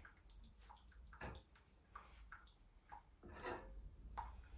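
Water dripping from a boiled crab held over its pot: a few faint, irregular drips and small ticks, one a little louder past the middle.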